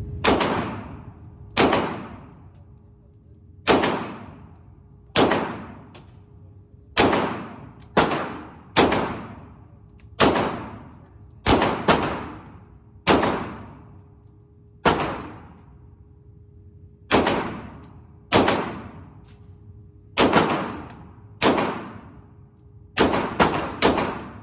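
Glock 19 Gen 5 9mm pistol being fired about twenty times at an uneven pace. Most shots come a second or two apart, with a few quick pairs and a fast string of three near the end. Each shot trails off in a long echo.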